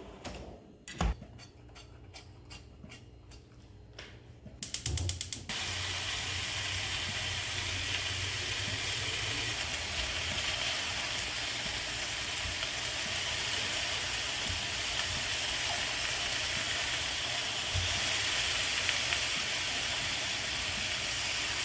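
A few light clicks, then a quick rapid run of clicking about four and a half seconds in, followed by a steady, even hiss that continues without letting up.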